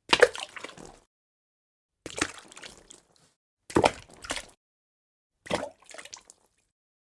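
Water dripping: four separate drips, about one and a half to two seconds apart, each a sharp drop followed by a few smaller splashes, with dead silence between.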